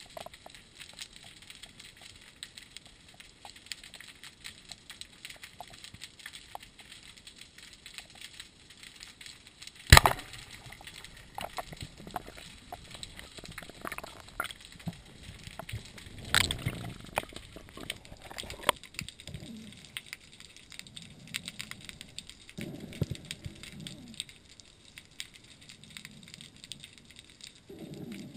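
Underwater sound through a GoPro's waterproof housing: a faint, steady crackling of small clicks, with a sharp knock about ten seconds in, more knocks about six and eight seconds later, and some low rumbling in the second half.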